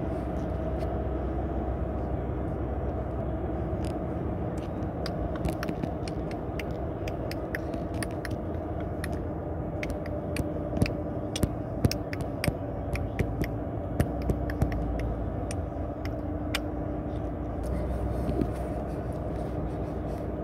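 Steady road noise and engine hum of a moving car, with a run of sharp clicks through the middle that are louder than the steady noise.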